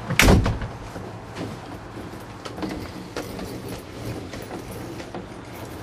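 A fire engine's cab door slams shut shortly after the start. A few light clicks and knocks follow, over the steady low hum of the truck's engine running.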